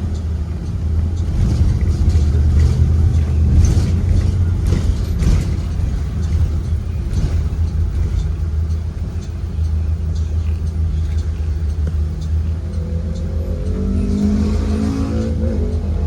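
2023 Blue Bird Vision school bus's Ford 7.3-litre V8 engine running under way, heard inside the cabin as a steady low rumble with road noise and scattered rattles.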